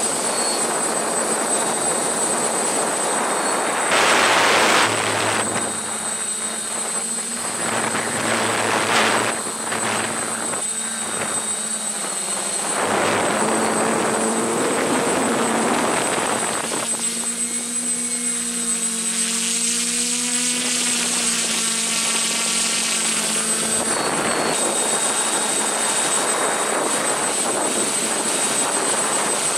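Hexacopter's brushless motors and propellers whirring in flight, with a steady high whine over the rotor noise. There is a loud whoosh about four seconds in, and the rotor hum wavers up and down in pitch as the throttle changes later on.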